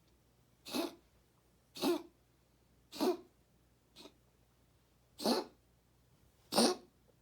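Cat reverse sneezing: a run of six sharp, noisy inhalations, about one a second, the fourth much fainter than the rest.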